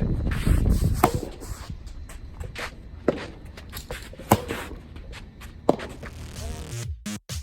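Soft tennis rally: sharp pops of the soft rubber ball off rackets and court, about five over several seconds, over wind buffeting the microphone. Electronic music comes in near the end.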